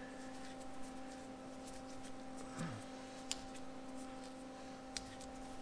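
A wrench clicking faintly a few times against an AN hose fitting as it is tightened, over a steady background hum.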